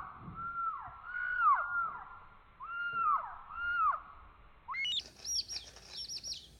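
A young chicken's calls, slowed down so each one is a drawn-out, low, arching note that falls in pitch, about six of them. About three-quarters of the way through, the calls jump to quick, high chirps.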